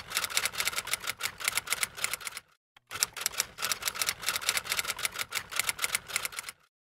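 Typewriter sound effect: rapid key clacks, about eight a second, in two runs with a short break about two and a half seconds in, stopping shortly before the end, in time with caption text typing itself onto the screen.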